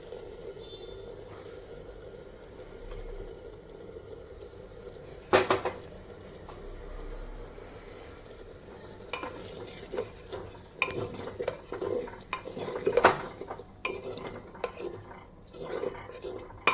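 A spoon scraping, knocking and clinking against cookware while a thick paste is stirred into a curry. There is one sharp knock about five seconds in, then from about nine seconds on a run of irregular clinks and scrapes.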